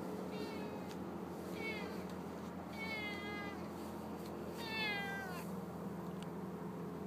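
A domestic cat meowing four times, each call short and falling in pitch, the last one about four and a half seconds in the loudest. A steady low hum runs underneath.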